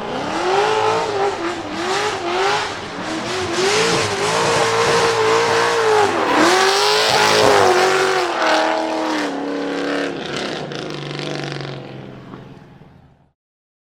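Chevy LS7 V8 of a drifting car revving hard, its pitch swinging up and down over and over, with tyre noise underneath. After about eight seconds the revs drop in steps and the sound fades, then cuts off suddenly near the end.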